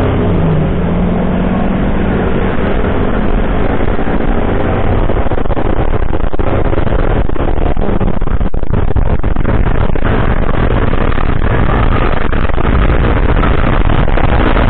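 Steady wind rush and road noise on a moving scooter's handlebar-mounted microphone as it speeds up, with the Yamaha scooter's engine running beneath it.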